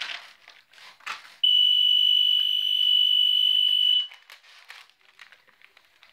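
A timer alarm sounds one steady high-pitched tone for about two and a half seconds, signalling that time is up for the round of passing the present. After it stops, wrapping paper crinkles softly as a layer starts to be torn off.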